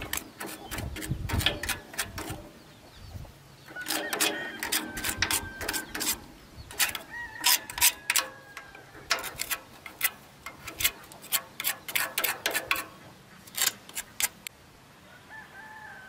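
Steel knife blade scraping along the steel frame of an old rice threshing machine, in quick rasping and clicking strokes that come in bursts. It stops a little before the end.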